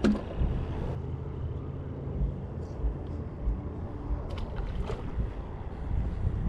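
A steady low rumble, with a faint steady hum for the first few seconds and a few light clicks around the middle.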